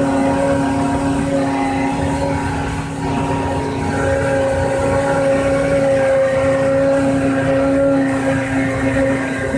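Homemade CNC machine running with its spindle motor turning, a loud steady hum with a higher whine over it.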